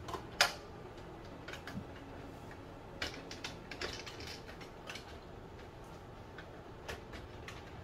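Irregular light clicks and taps of hands handling the printer's plastic parts and packing pieces: one sharper click about half a second in, then a quick run of clicks around three to four seconds in.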